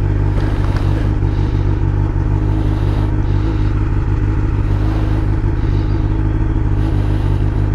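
Suzuki GSX-R 750's inline-four engine idling steadily just after starting, purring with a low, even rumble.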